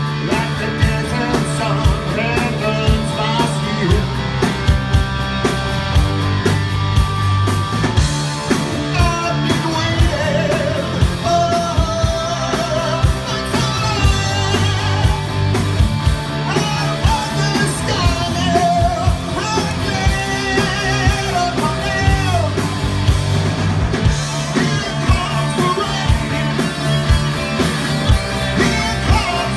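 Live hard-rock band playing: a male singer over two electric guitars, bass guitar and a steady drum beat.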